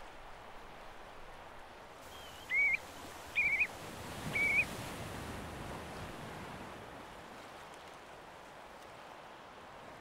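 Three short whistled shorebird calls, each a quick trilled or upward note, about a second apart, over a steady soft hiss of wind and water at the shore.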